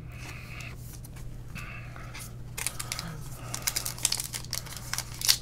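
Foil wrapper of a baseball card pack crinkling and tearing as it is opened, starting about halfway through as a run of quick, irregular crackles.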